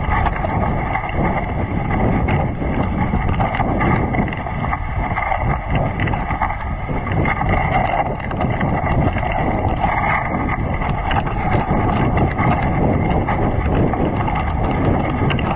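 Dog sled running over snow: runners scraping and hissing on the snow, with wind on the microphone and light clicks and rattles from the sled.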